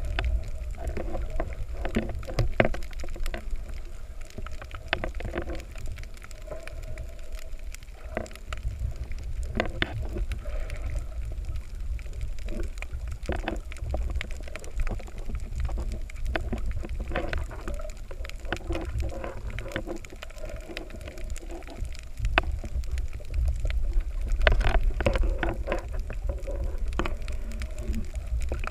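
Underwater sound through a camera's waterproof housing: a steady low rumble of moving water with many scattered clicks and crackles, the rumble swelling for a few seconds near the end.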